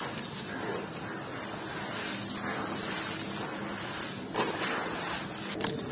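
Hands squeezing and crumbling wet, gritty red dirt in muddy water: a steady gritty crunching and squelching with wet sloshing, and a few sharper crunches about four and a half seconds in and near the end.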